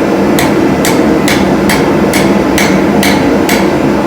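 Hand hammer striking hot steel while forging a screwdriver shaft: eight sharp blows, about two a second, stopping about three and a half seconds in, over a steady low roar.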